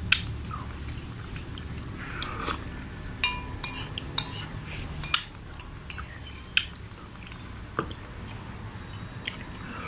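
A spoon clinking and scraping against a dish of aloe vera dessert, with scattered sharp clinks that ring briefly, over a low steady background hum.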